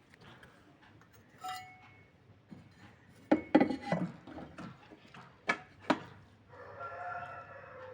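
Metal clinking and rattling, then two sharp knocks, then a pitched scraping squeak of about a second near the end.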